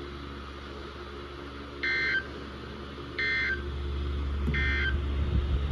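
Emergency Alert System end-of-message (EOM) data tones: three short bursts of buzzy digital data tones about 1.4 s apart, marking the end of the severe thunderstorm warning, over a steady low hum.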